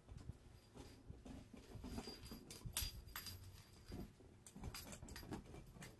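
A small plastic ball toy with a feather tail knocking and rolling over a hardwood floor as a cat bats at it: faint, irregular light taps and clatters.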